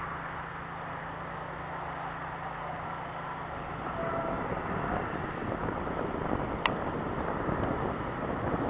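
Hi-rail SUV's engine idling as a steady low hum. About halfway through, wind buffeting the microphone grows louder, and near the end there is one short click.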